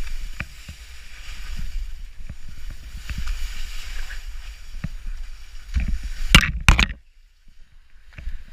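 Skis sliding and scraping over wet spring snow, with a low rumble of wind on the microphone and scattered small knocks. Two loud, harsh scrapes come just before seven seconds in, then it goes much quieter.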